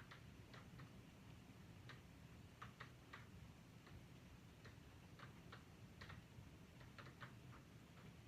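Faint, sharp clicks at uneven intervals, about one or two a second, over a low steady hum.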